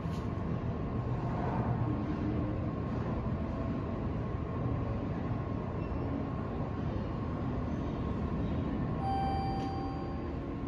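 Steady low mechanical rumble of an elevator lobby while a called elevator car is on its way. About nine seconds in comes a short electronic tone lasting about a second.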